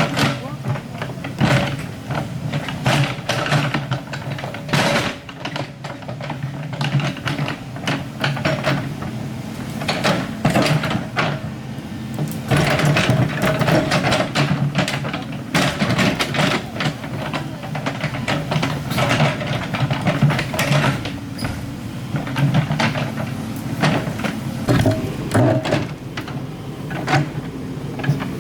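Excavator engine running steadily, with frequent irregular knocks and clanks of metal throughout.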